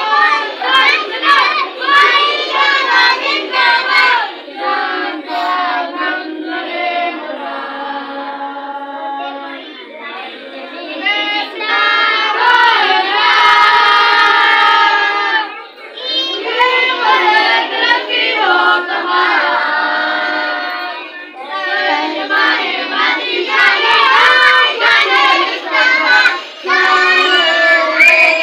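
A group of children singing a song together with no instruments, the voices dipping briefly between phrases a few times.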